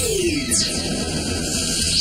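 Action music with synthesized sci-fi energy-blast effects: a falling zap at the start, then high whooshes about half a second in and again at the end.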